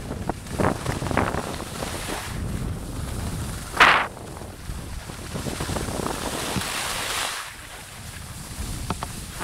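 Wind buffeting the microphone while skiing downhill, a steady low rumble, overlaid by the hiss of skis scraping and carving on groomed snow, loudest in one sharp scrape about four seconds in.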